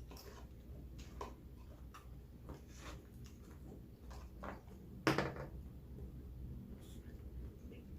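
Close-up eating sounds: wet mouth clicks and smacks of chewing in a steady string, with one louder short sound about five seconds in.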